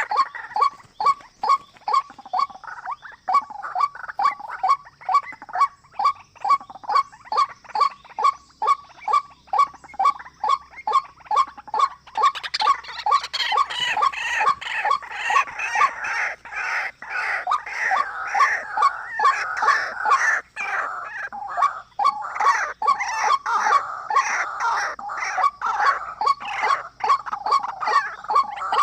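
Bird calls: a fast, regular run of repeated call notes, about two to three a second, with a busier, higher chattering of calls joining in about halfway and carrying on to the end.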